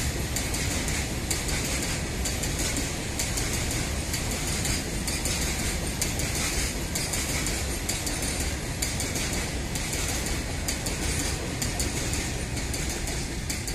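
A freight train's covered hopper wagons rolling past close by: a steady rumble of steel wheels on rail, with repeated clicks and clatter from the wheels.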